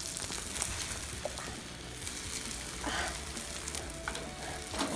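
Egg omelette frying in a nonstick pan, a steady sizzle of hot fat around it.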